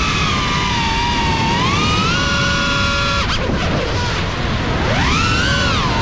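Cinelog 35 FPV drone's brushless motors and propellers whining, the pitch gliding up and down with the throttle. About three seconds in the whine falls away sharply as the throttle is cut for a roll, then surges back up steeply about two seconds later as power is punched back in.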